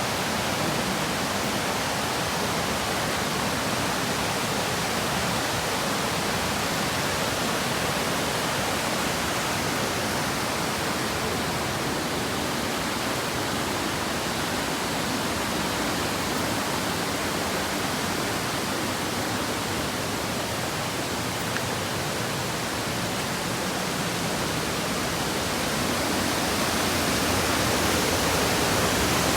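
Waterfall: a steady rush of falling water, growing a little louder near the end.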